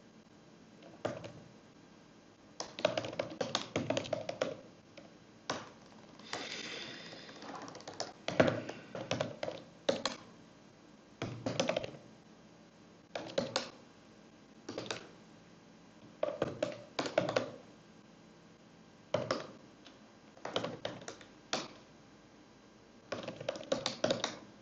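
Typing on a computer keyboard in short bursts of key clicks with pauses between, as shell commands are entered one at a time.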